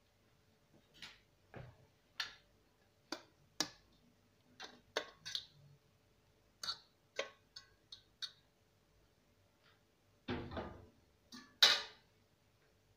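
Boiled potato slices tipped from a metal pot into a bowl: a series of irregular clinks and knocks of the pot against the bowl, with a short rustling slide of potatoes about ten seconds in and the loudest knock about a second before the end.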